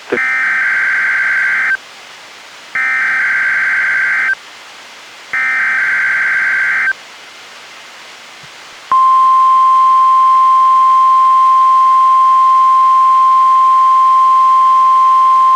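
NOAA Weather Radio Emergency Alert System required weekly test. First come three identical SAME header bursts of warbling two-pitch digital data tones, each about a second and a half long and a second apart. About two seconds later the steady NWR 1050 Hz alert tone starts and holds.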